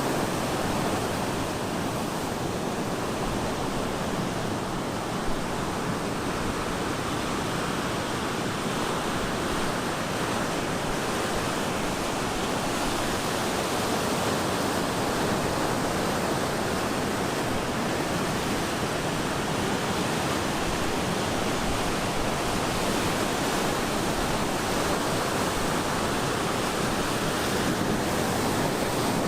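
Ocean surf breaking on a beach: a steady, dense wash of wave noise with no distinct individual wave crashes.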